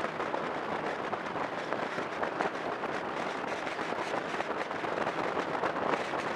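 Steady rush of wind and road noise from a vehicle travelling at speed, crackling on the microphone, with no clear engine note.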